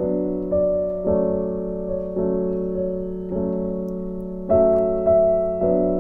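Background piano music: chords struck every second or so, each left to ring and fade before the next, the loudest about four and a half seconds in.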